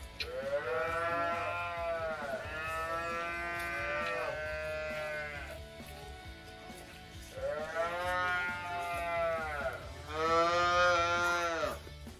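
Calves mooing: five long calls, each rising and then falling in pitch. Three come one after another, then two more after a short pause.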